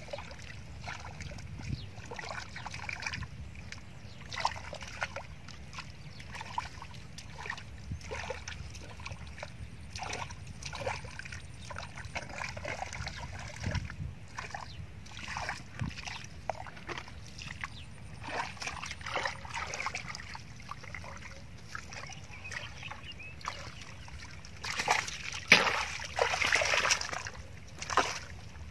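Bare feet and hands sloshing and squelching through a shallow muddy puddle in short, irregular splashes, with a louder burst of splashing near the end.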